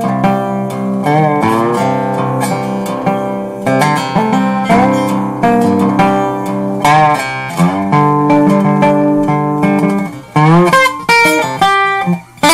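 Instrumental music: a plucked guitar playing a run of notes.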